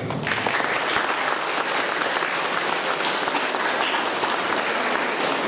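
Audience applauding: steady clapping from a seated crowd.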